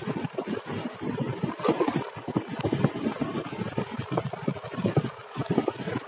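Wind buffeting the microphone while riding: a rough, uneven low rumble that surges and drops irregularly, with no steady engine tone standing out.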